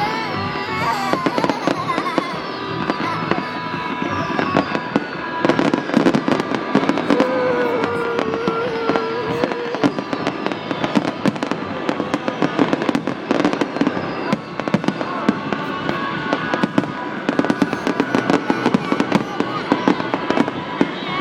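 Fireworks display: rapid, dense bangs and crackles of bursting shells over loud accompanying music, with a few falling whistles.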